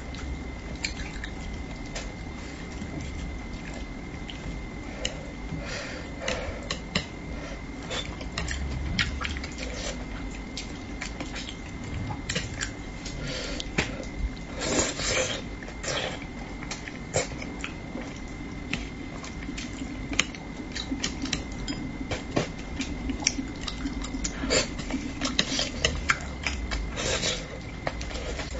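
Eating sounds: chopsticks clicking against the dish and bowl while picking at spicy braised fish, and chewing of the fish, with many short sharp clicks and a few louder clusters of mouth noise.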